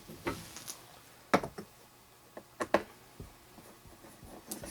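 Handling noise from the plastic housing of a truck's HVAC heater box: scattered sharp clicks and knocks of hard plastic parts, the loudest about a second and a half in and a quick pair near the middle.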